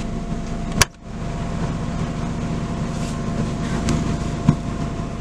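A car's engine idling steadily, heard from inside the cabin, with a sharp click about a second in as the passenger door is opened and a passenger climbing in. A heavy thump comes at the very end, as the car door is shut.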